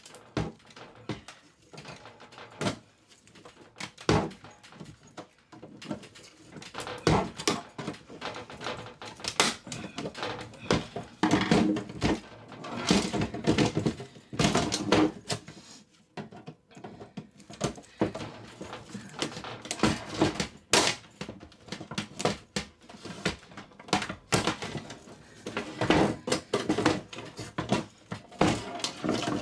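Screwdriver blades prying at the seams of a small steel BillConch gun safe: irregular metal clicks, knocks and grating scrapes, coming in clusters as the blades are forced into the lid gap.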